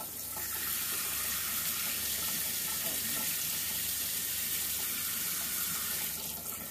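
Kitchen mixer tap running a steady stream into a stainless steel sink, the flow breaking over a hand held under it. The hot tap is being run to draw hot water through from a newly commissioned electric combi boiler.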